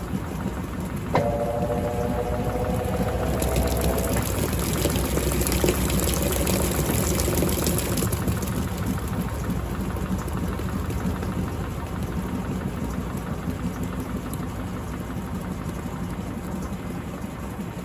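Electrolux LTC15 top-loading washing machine running mid-cycle with a steady low motor hum. About a second in there is a click, followed by a whining tone that fades after about three seconds.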